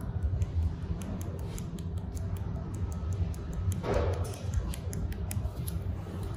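Light clicks and taps of a plastic weld-metal cartridge as starting powder is shaken out onto a graphite exothermic welding mould, with one louder knock about four seconds in, over a low steady hum.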